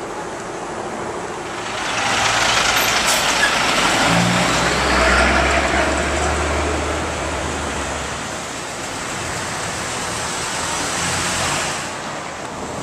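Motor vehicle engine and road noise while riding along a cobbled street. The noise swells about two seconds in, a low engine drone is strongest in the middle, and it eases off near the end.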